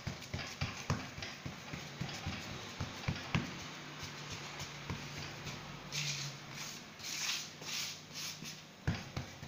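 Palm patting and pressing a round of semolina dough flat on a metal tray: a run of soft slaps and taps, about two or three a second, then rubbing strokes as the surface is smoothed, over a faint low hum.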